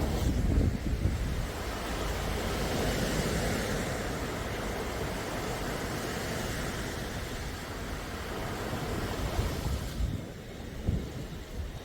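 Sea waves washing in, a steady surf hiss with a surge at the start, and low wind rumble on the microphone. About ten seconds in the hiss drops away, leaving the low rumble and a few gusts.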